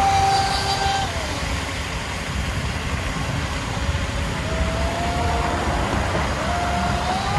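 The RC speedboat's 3.1 kW brushless electric motor whining at high speed. The whine falls away about a second in as the boat runs off, then rises again twice near the end as it speeds back.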